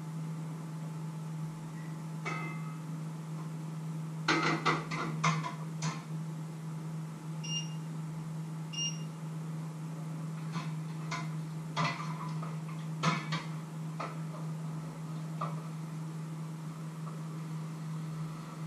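Kitchen clatter: pots, pans and utensils clanking in short knocks, bunched about four to six seconds in and again from about eleven to fourteen seconds, with two short high electronic beeps between them, over a steady low hum.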